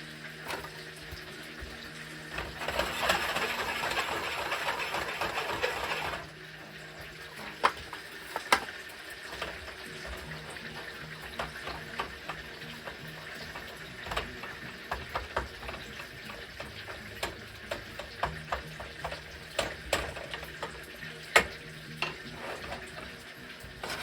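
Food frying in a pan with a steady sizzle, which swells louder for about four seconds near the start. After that come many short, sharp clicks and taps of a utensil against the pan as the food is stirred and turned.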